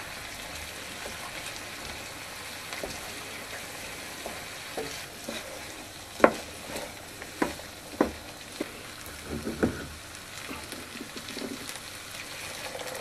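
Orzo with vegetables sizzling and simmering in a pan after boiling water is added, while a wooden spoon stirs it. There are a handful of sharp knocks of the spoon against the pan in the middle.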